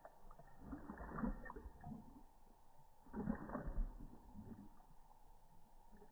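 A dog lapping water from a stainless steel bowl with its tongue, in uneven runs of laps that are loudest about a second in and again around the middle.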